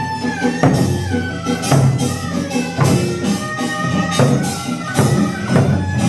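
Korean traditional accompaniment music for the Jindo drum dance: percussion strokes in a steady beat under a melody of held, slightly sliding notes.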